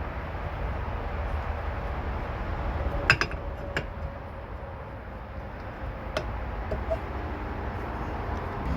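A few light, sharp clinks of metal parts being handled, over a steady background hiss and rumble, while a rusty brake caliper piston is being cleaned up.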